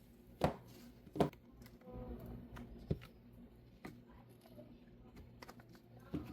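Light clicks and knocks of objects being handled, about five scattered over a few seconds, over a low steady hum.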